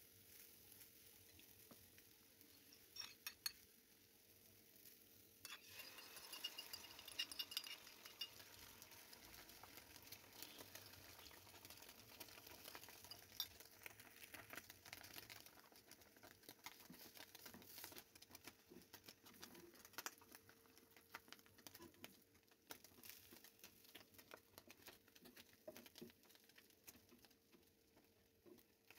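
Beaten egg sizzling faintly in hot oil in a nonstick frying pan, setting in with crackling about five seconds in and dying down to light spitting. Near the end there are a few light taps of a spatula on the pan.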